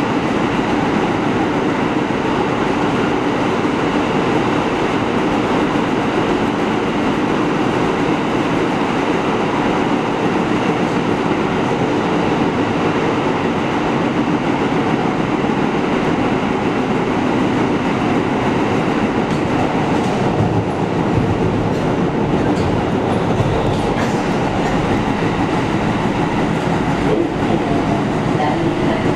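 A New York City subway Q train running through a tunnel, heard from inside the front car: a steady, loud rumble of wheels on rails. A few sharp clicks of wheels over the track come in the later part.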